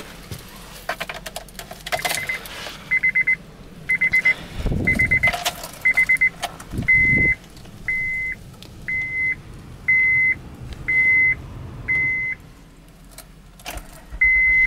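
A car's warning chime beeping steadily about once a second, as a driver settles in with the key, with a jingle of keys near the start and a couple of dull thumps in the middle.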